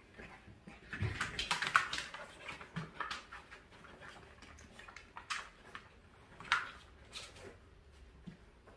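Dogs and a puppy scuffling at play on floor cushions and a vinyl floor: paws and claws scrabbling, with scattered taps and rustles, busiest between one and two seconds in.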